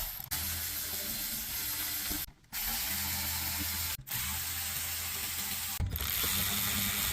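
Cordless power driver with a 7mm socket backing out the radio's mounting screws in a Ford F150 dash. It runs with a steady whir in bursts of one to two seconds, stopping briefly between screws.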